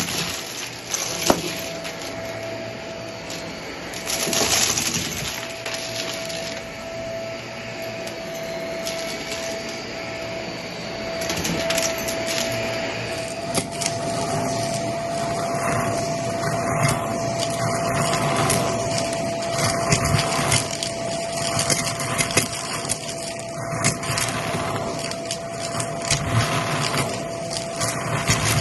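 Shark vacuum cleaner running over carpet, its motor giving a steady whine, while small bits of debris crunch and rattle up into it. In the second half the sound swells and fades with each push and pull of the vacuum.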